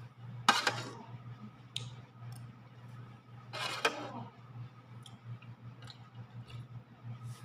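Eating Indomie instant noodle soup with a metal spoon: two loud slurps, about half a second in and about three and a half seconds in, with light clicks of the spoon and mouth between them, over a steady low hum.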